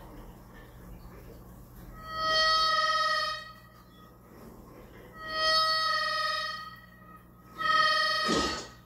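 Film soundtrack heard through a TV: three long, shrill harmonica notes, each held for about a second or more with short gaps between them. A brief thud comes near the end of the third note.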